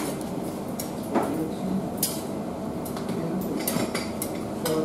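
Metal tongs clinking against a steel sausage tray: a few scattered clinks at irregular moments over steady kitchen background noise.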